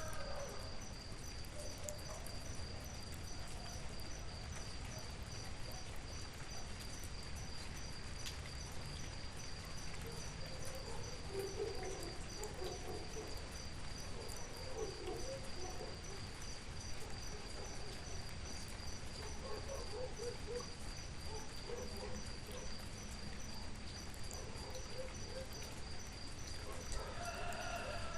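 Rural rain ambience: a steady high, pulsing insect trill, like crickets, over an even hiss of rain, with faint low animal calls in the middle. A rooster begins to crow near the end.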